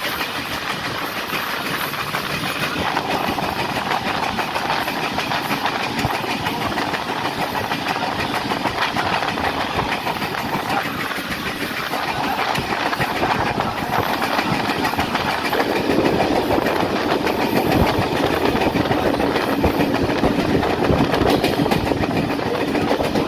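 Moving passenger train heard from aboard: a steady rumble of wheels on the rails with clickety-clack over the rail joints and a steady hum. It grows louder a little past halfway through.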